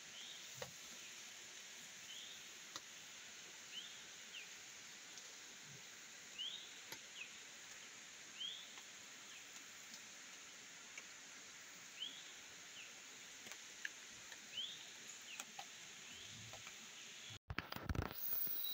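Evening rainforest ambience: a steady high insect chorus, with short chirping calls repeating every second or two and a few faint clicks. Near the end it cuts abruptly to the louder rushing of a shallow river flowing over rocks.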